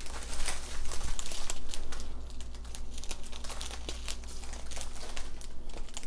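Small clear plastic bags of diamond painting drills crinkling and rustling as they are picked up and sorted by hand, in quick, irregular crackles.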